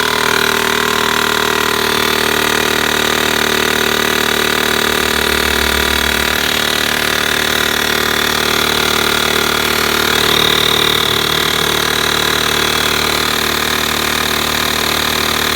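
Amdrfo portable tire compressor's motor and pump running steadily as it inflates a tire toward a preset 33 psi, where it should stop automatically.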